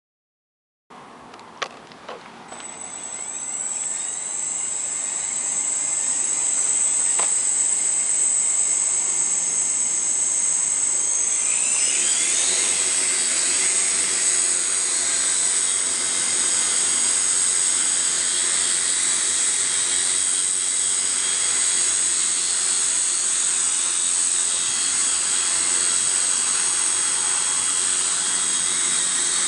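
Electric motors and propellers of a 5-litre crop-spraying multirotor drone: a few clicks, then a high whine that builds over a few seconds. About twelve seconds in, the pitch rises and a low hum joins as the rotors speed up, then it runs steadily.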